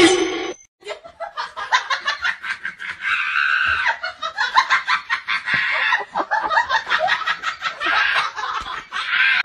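Yellow rubber chicken squeeze toys squawking over and over as they are squeezed in quick succession, with a few longer screeches in between.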